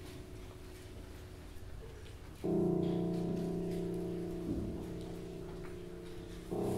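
Grand piano played slowly in held chords: a chord rings and fades, a new chord is struck about two and a half seconds in and left to ring, and another is struck near the end.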